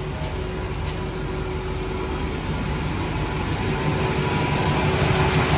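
Chevy pickup's engine idling steadily with good oil pressure, just after a new oil pressure sensor was fitted. It grows a little louder toward the end as it is approached at the open engine bay.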